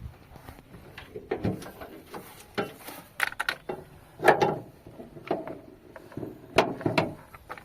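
Irregular clicks, knocks and clunks of parts being handled inside a car, the loudest about four seconds in and again near the end.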